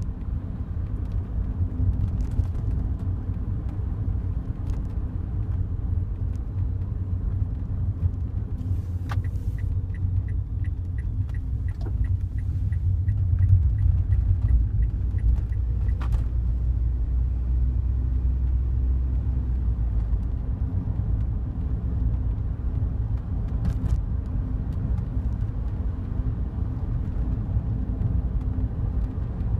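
Cabin of a Daihatsu Wake kei car on the move: steady low road and engine rumble, with a few sharp clicks scattered through it, the kind of rattle that comes from the passenger-side dashboard when it vibrates. In the middle, a run of even ticks goes on for about six seconds, roughly three a second.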